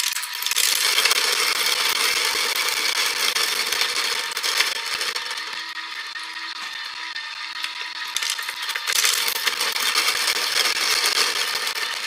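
Comandante C40 hand grinder turned by an Aikamo motor base at about 250 RPM, its burrs crunching through a few coffee beans at a coarse setting: a dense crackling over a steady faint hum. It eases off in the middle and picks up again about nine seconds in.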